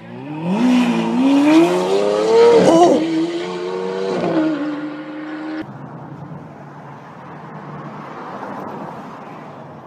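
Supercar engine revving hard as the car accelerates away, its pitch climbing steeply, dropping briefly at a gear change, then climbing again. It cuts off abruptly about halfway through, leaving a quieter steady background hiss.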